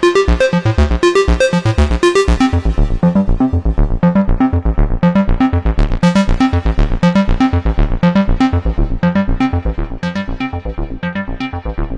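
Moog Subsequent 25 analog synthesizer playing a fast sequenced pattern of short repeated notes, about six a second, over a deep bass. About two and a half seconds in the filter closes and the tone turns dull, then it slowly opens brighter again.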